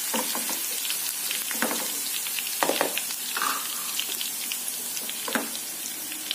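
Chopped garlic sizzling and crackling steadily in hot oil in a pan, with a few louder knocks and scrapes of a wooden spatula stirring it. The garlic is being fried until it turns brownish.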